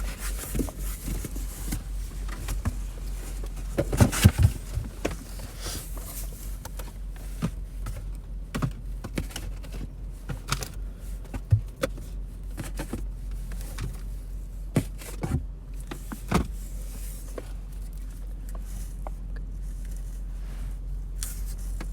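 Hands handling trading cards and their packaging: scattered clicks, taps and rustles, a cluster of louder knocks about four seconds in, over a steady low hum inside a parked car.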